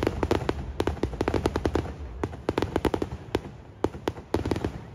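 Aerial firework shells bursting close overhead: rapid clusters of sharp cracks and pops, several a second, coming in volleys that pause briefly and start again.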